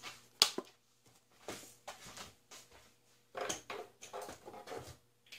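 Small kitchen handling noises: one sharp click about half a second in, then soft scattered knocks and rustles.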